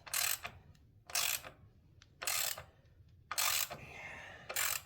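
Hand ratchet wrench clicking in five short runs, about one a second, as it is swung back and forth to loosen a 1/2-inch bolt.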